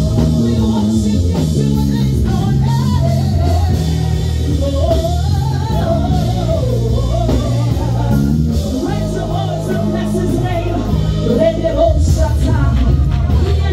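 Live gospel worship music: a woman sings lead into a microphone in sliding, wordless runs over a band holding steady chords.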